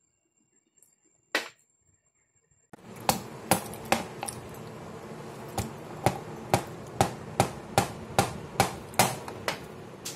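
Kitchen blade chopping on a cutting board: after a couple of quiet seconds with a single knock, a run of sharp, evenly spaced chops, about two a second, over a steady background noise.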